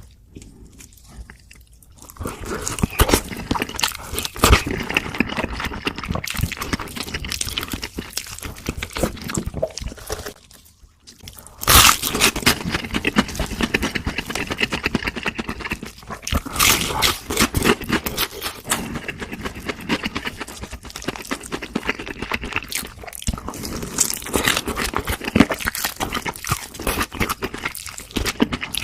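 Crunching and chewing of crispy fried food close to the microphone, dense crackly bites starting about two seconds in. After a short lull near the middle comes one loud crunchy bite, and the chewing goes on.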